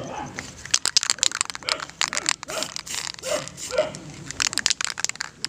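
A dog barking a few short times, over a run of rapid sharp clicks and rattles.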